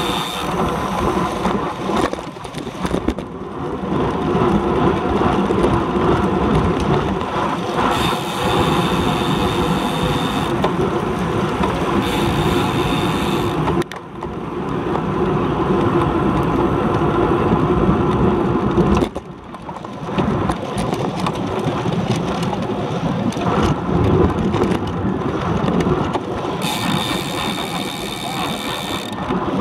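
Wind rushing over a handlebar-mounted action camera's microphone on a road bike at race speed, with tyre and road noise underneath. A high, steady whine comes and goes a few times.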